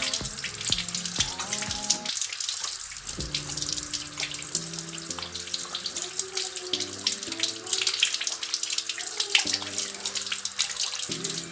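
Tap water running and splashing over hands as soap is rinsed off. A melody plays softly underneath.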